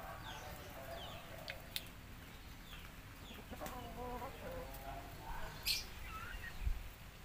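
Chickens clucking in the background, with small birds chirping high up. A few sharp clicks of people eating with their hands come through, the loudest about two-thirds of the way in.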